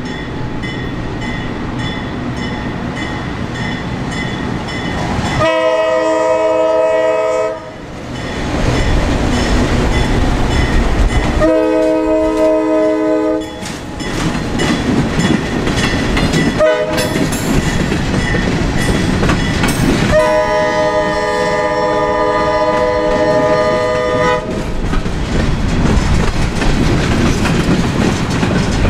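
Diesel locomotive's multi-note air horn sounding the grade-crossing signal, long, long, short, long, as it passes. Steady rumble of the locomotive and train runs underneath. After the last blast, freight cars roll by with a clickety-clack.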